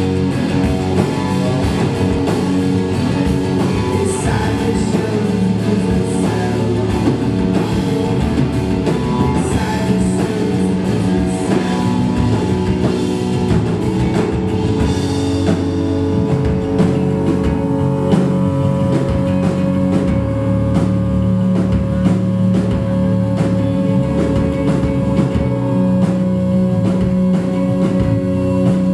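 Rock band playing live: guitars over a drum kit, with held notes ringing out. The cymbals thin out about halfway through.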